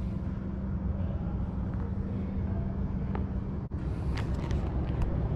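Steady low hum of a large indoor hall, with a few faint clicks and taps between about three and five seconds in and a momentary drop-out in the sound just before four seconds.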